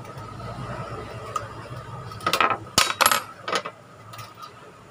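Small metal hand tools clicking and clinking against a scooter's throttle body as the auto choke is unfastened, with a short run of louder clattering knocks a little past halfway.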